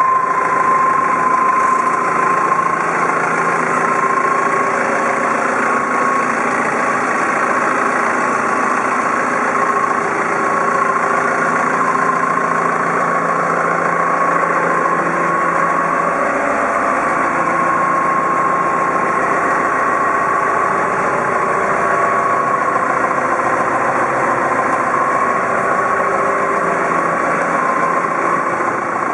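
Clark C45 diesel forklift's engine idling steadily, with a steady high whine above the engine note.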